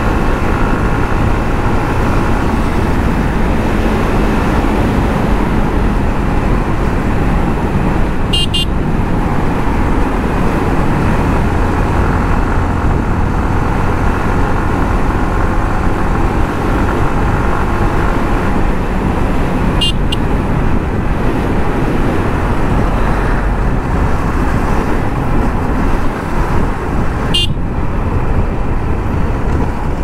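Yamaha MT-15's 155 cc single-cylinder engine and exhaust running steadily while the bike cruises on the highway, with three short clicks along the way.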